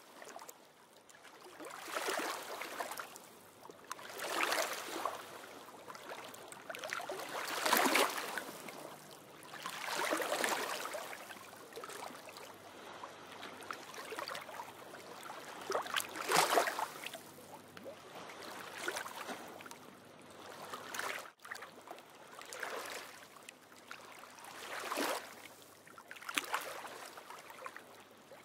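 Small lagoon waves washing in against the shore, each wash swelling and fading about every two to three seconds.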